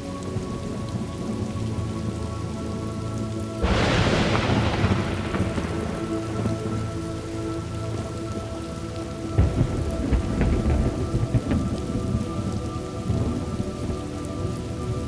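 Thunderstorm: steady rain with a sudden thunderclap about three and a half seconds in that dies away over a couple of seconds, then a low rumble of thunder rolling in from about nine seconds in.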